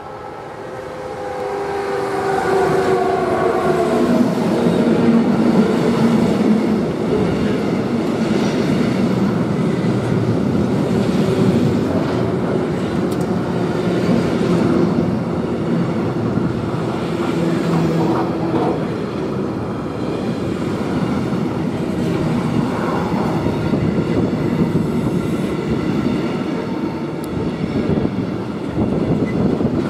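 Intermodal freight train passing close at speed. A whine falls in pitch as the locomotive goes by, then a steady rumble and rattle of the wagons' wheels on the rails.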